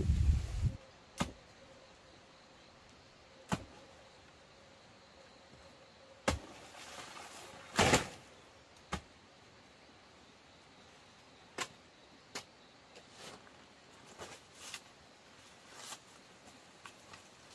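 A knife chopping at a banana plant: about a dozen sharp, irregular knocks with a short rustle in the middle. A loud low rumble cuts off abruptly in the first second.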